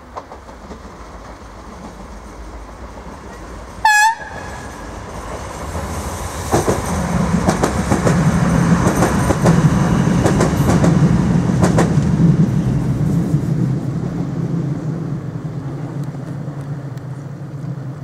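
Irish Rail 8520 class DART electric train gives one short horn toot about four seconds in. It then passes close by with a steady rumble and a run of wheel clicks over the rail joints, fading near the end.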